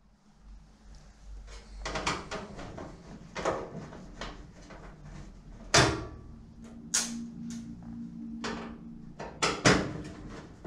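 Handling noise from the sheet-steel back panel of an electric cooker as it is worked on by hand: a run of irregular knocks and rattles, with two sharp bangs about six seconds in and again near the end.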